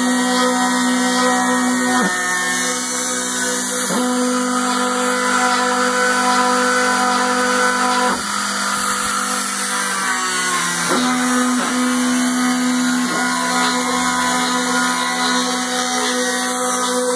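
Homemade CNC milling machine running: a steady motor whine that dips briefly in pitch and recovers about six times at irregular intervals.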